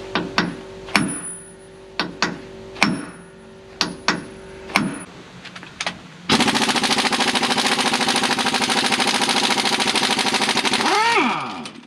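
A hammer strikes the steel trailer-hitch assembly of a Fendt tractor about ten times, each blow ringing. Then a cordless impact wrench hammers steadily for about five seconds, loosening the hitch bolts, and winds down with a falling whine.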